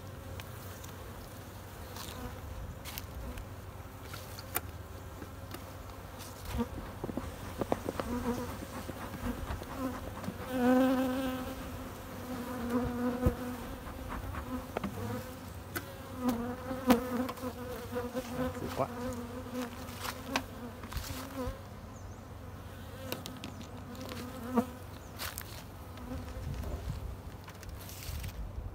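Honey bees buzzing around open hives, a steady hum that comes and goes and is loudest in the middle stretch, with scattered clicks and rustles of hive parts and plastic sheeting being handled.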